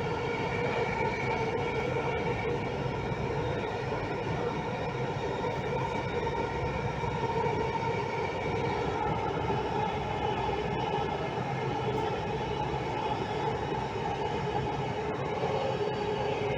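Delhi Metro train running between stations, heard from inside the coach: a steady rumble with several steady whining tones.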